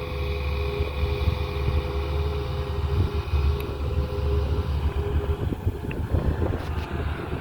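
Excavator's diesel engine running under load, with a steady hum that stops about five and a half seconds in, leaving a rougher, uneven engine sound.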